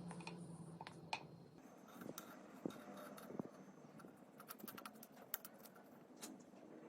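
Faint, scattered small clicks and light scratching, with a quick run of ticks about two-thirds of the way through.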